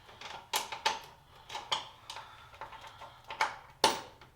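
About half a dozen sharp metallic clinks and knocks of hand tools and metal parts being handled, the loudest near the end.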